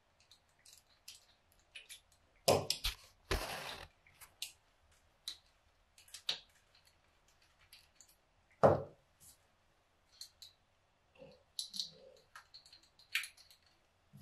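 A screwdriver turning screws into a four-barrel carburetor: light metallic clicks and ticks, with a few louder knocks and a short scrape as the carb body and tools are handled.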